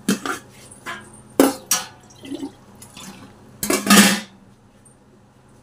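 Water being poured with a brief splash, the loudest sound about four seconds in, among a few short knocks of kitchen utensils.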